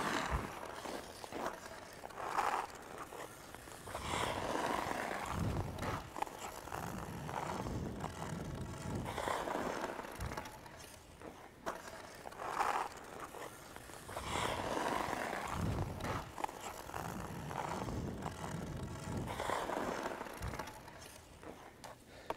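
Ice hockey skate blades carving and scraping on ice, rising in swells every couple of seconds as the skater pushes and turns, with a few sharp clicks.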